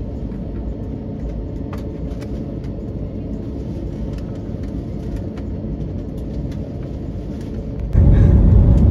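Jet airliner cabin noise while the plane rolls along the ground: a steady low rumble of the engines and wheels, with a faint hum. About eight seconds in it turns abruptly much louder, the engine noise of the climb-out just after lift-off.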